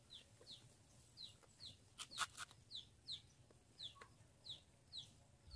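Faint high chirps from a bird, each note falling in pitch, repeating about twice a second. A few sharp clicks come about two seconds in.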